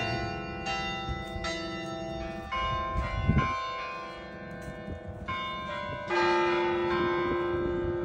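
Carillon bells in a tower playing a Christmas carol: single notes struck one after another in a slow melody, each ringing on and overlapping the next. A short low rumble comes about three seconds in.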